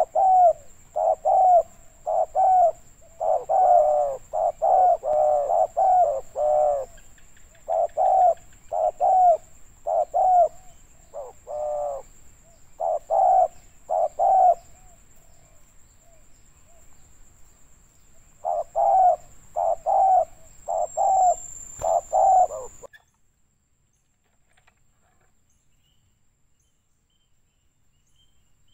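Spotted dove cooing: repeated phrases of short, low coos with brief pauses between them, stopping abruptly about three-quarters of the way through.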